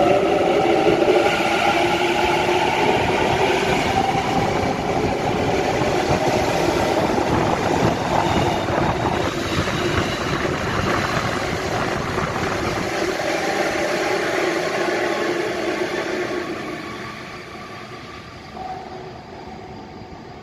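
Sydney Trains Waratah (A set) electric train pulling out, its traction motors whining up in pitch over rail and tunnel rumble, then dying away near the end.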